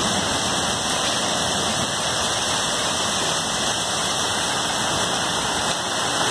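Dime-size hail mixed with heavy rain pelting a lawn and concrete walk: a dense, steady hiss of countless small hits.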